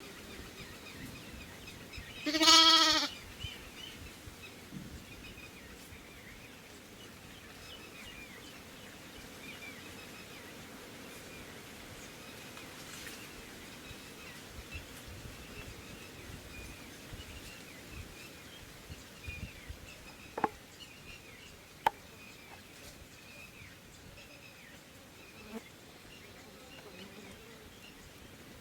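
A goat or sheep gives one loud, wavering bleat about two and a half seconds in, lasting under a second. Faint high chirps carry on in the background, with a few sharp clicks later on.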